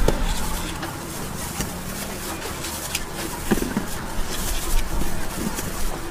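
Outdoor market ambience: indistinct background voices over a steady low hum, with scattered light clicks and clatter.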